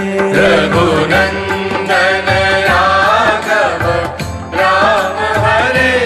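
Background music: a Hindi devotional song to Ram, a voice singing over instrumental accompaniment.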